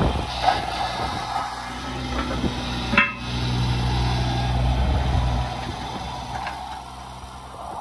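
Kubota U17-3 mini excavator's three-cylinder diesel engine running under hydraulic load as the boom and bucket are worked, easing off after about five seconds. A sharp metallic clank rings out about three seconds in.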